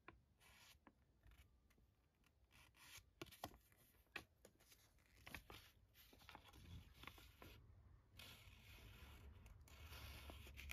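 Faint rustling and crinkling of a folded paper leaflet being unfolded and handled, with scattered small clicks.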